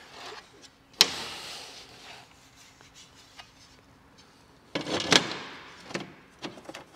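Cardboard packaging and a glass pane being handled: a sudden sliding scrape about a second in fades away, then more scraping and knocking near the end as the pane is lifted out and stood against the pipe coil.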